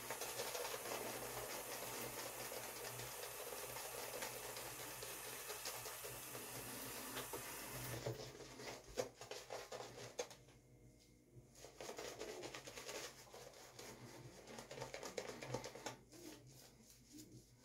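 Synthetic shaving brush scrubbing shaving soap into lather on a stubbled face: a fast, brushy scratching of many small strokes. About halfway through it turns softer and comes in broken spells with short pauses.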